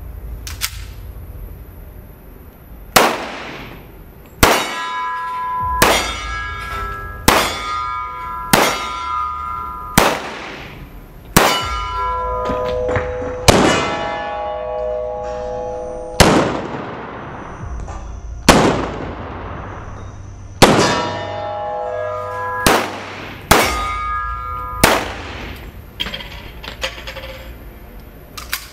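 Semi-automatic pistol fired as about fourteen single shots, spaced one to three seconds apart, each echoing through an indoor firing range. Steady ringing tones sound between the shots.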